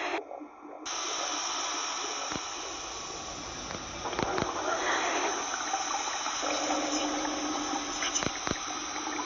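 Running water: a steady rushing hiss that starts abruptly, with a few sharp clicks and a low steady hum joining about two-thirds of the way through.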